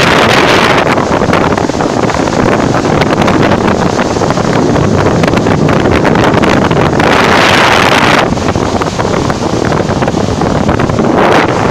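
Wind buffeting the microphone over the rushing, splashing bow wave as a ship's bulbous bow pushes through the sea, swelling louder for about a second around seven seconds in.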